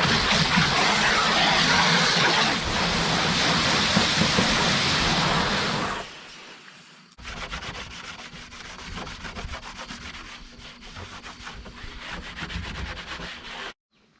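Wheelbarrow being scraped and rubbed clean: a loud, steady rubbing noise for about six seconds, then after a cut, quieter quick scraping strokes.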